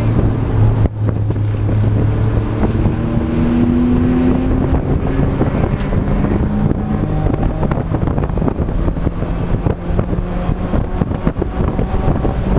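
Race car's engine heard from inside the stripped, roll-caged cabin while lapping a track, over heavy road and wind noise. Its pitch climbs from about two seconds in, then drops back and holds steady.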